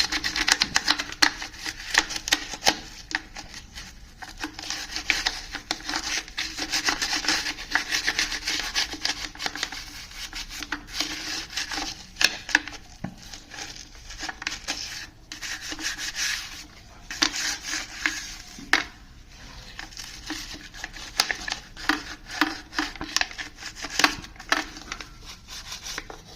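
Old brush scrubbing dust off a Samsung washing machine's filter: irregular scratchy brushing strokes with a few short pauses.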